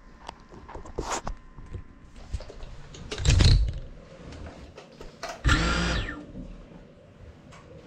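GEPRC CineLog 35 cinewhoop's motors spinning up in short throttle bursts: a brief one about three seconds in and a longer one near the end whose whine rises and falls. Light clicks and knocks come in the first seconds.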